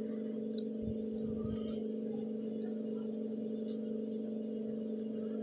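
A steady low hum of two held tones, with faint soft sounds of stirring in a pan.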